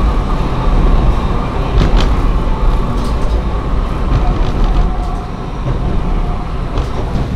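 Diesel railcar running along the track, heard from inside the cabin: a steady low rumble of engine and wheels on rail, with a few sharp clicks.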